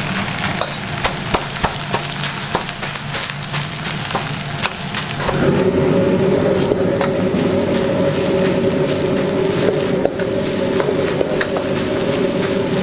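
Steel ladle and spatula clinking and scraping against a wok as rice and egg are stir-fried, a quick run of sharp clicks over a low steady hum. About five seconds in, a louder steady droning hum starts and carries on under the scraping.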